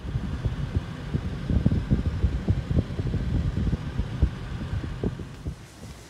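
Wind buffeting the microphone outdoors: an irregular low rumble with many soft thumps, easing off near the end.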